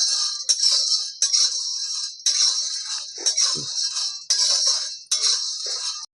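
Makhana (fox nuts) being stirred and tossed with a spatula in a dry pan to roast them crisp: a rattling, scraping hiss in strokes, about one a second.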